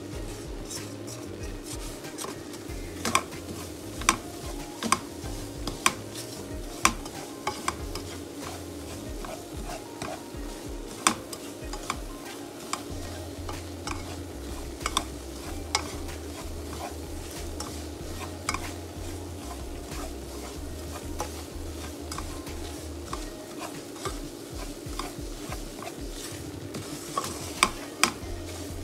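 A spatula stirring and scraping semolina cooked in butter around a non-stick pan, with a light sizzle under it. The spatula clicks and knocks against the pan every so often, loudest a few seconds in and again near the end.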